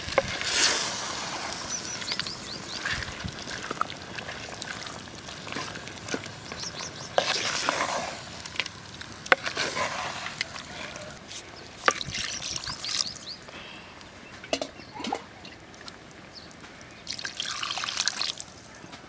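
Wooden spatula stirring wet meat in a clay pot, with liquid sloshing and a few sharp knocks against the pot. Near the end, water is poured into the pot.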